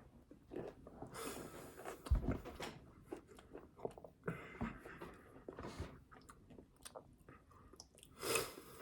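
Close-up chewing and biting of food, with irregular wet mouth clicks and smacks and a heavier thump about two seconds in.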